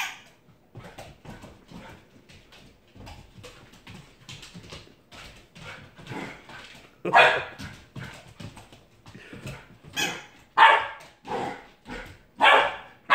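Dog barking in play: a run of about six loud, short barks starting about seven seconds in, with quieter, scattered dog sounds before them.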